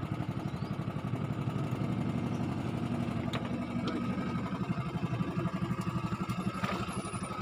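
A small engine running steadily close by, with a fast, even pulse.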